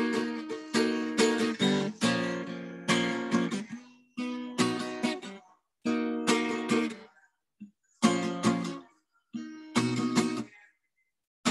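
Acoustic guitar strummed in chords: sharp strokes that ring and fade, played in short phrases with brief pauses between them.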